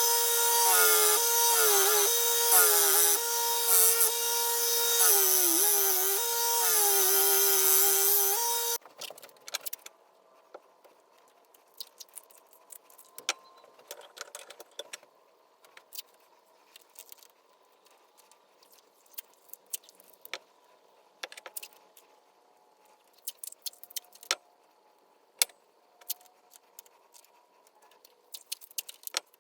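Electric power sanding tool running with a steady whine, its pitch dipping several times as the knife handles are pressed against it to shape them. It cuts off about nine seconds in, followed by faint scattered clicks and taps of handling.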